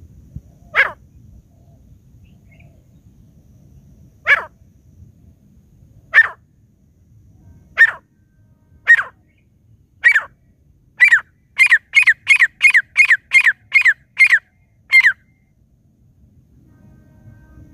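Grey francolin calling: a sharp, falling note repeated, first singly with gaps that shrink from several seconds to about one, then quickening into a run of about ten calls, some three a second, before it stops. This is the partridge call used to lure wild birds to a trap.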